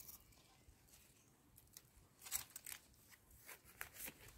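Faint scraping and crunching of a knife blade working through stony soil and cutting a wild mushroom free at its base, as a few short, scattered scrapes, mostly in the second half.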